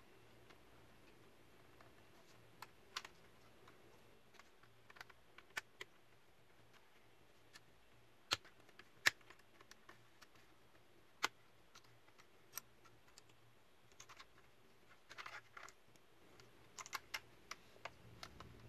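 Scattered small clicks and taps of a metal laptop display hinge and the plastic display case being handled and fitted together by hand, coming at irregular moments over a faint steady hum.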